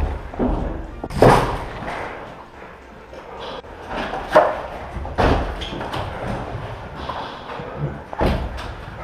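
A series of sudden bangs and thuds, echoing in bare concrete rooms, with four louder hits standing out among smaller knocks.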